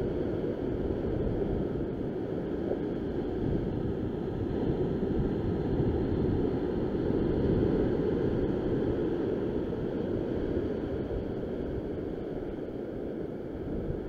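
Steady wind noise on the microphone mixed with ocean surf washing over the rocks, an even rush with no distinct events.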